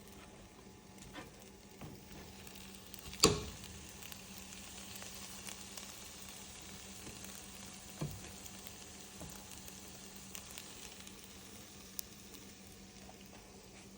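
Fried rice sizzling steadily in a hot pan. A loud sharp knock about three seconds in, a smaller one about eight seconds in, and a light click near the end.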